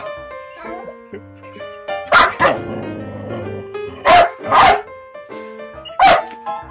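A dog barking in short loud bursts: a pair of barks about two seconds in, another pair about four seconds in, and a single bark near the end, over background music.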